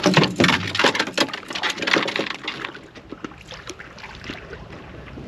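Water splashing and sloshing at the side of a boat as a large fish is let back into the water, busiest in the first two to three seconds, then dying down to a few small splashes.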